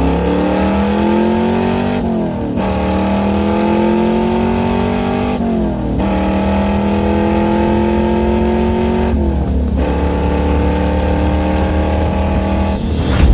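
Car engine accelerating hard through the gears: the pitch climbs steadily, then drops at each of three upshifts. A short loud burst comes right at the end.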